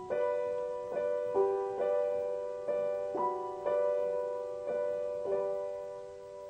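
Background piano music: soft sustained notes and chords struck about once or twice a second, the last one ringing on and fading near the end.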